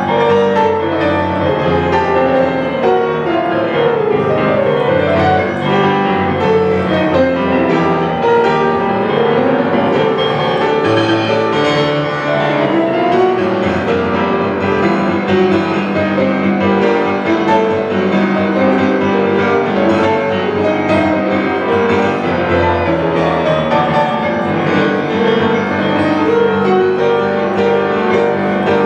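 Solo grand piano playing a waltz, a busy stream of notes over a sustained bass, at a steady loudness throughout.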